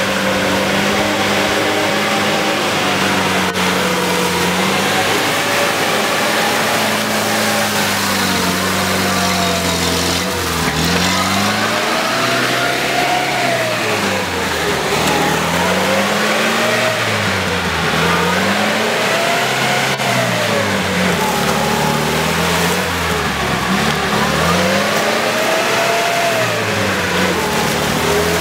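UAZ off-roader's engine running steadily, then from about ten seconds in revving up and dropping back again and again, every two to three seconds, as it works through deep mud ruts.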